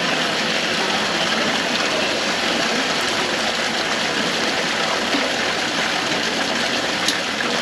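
Steady rush of running water at a stocked trout pond.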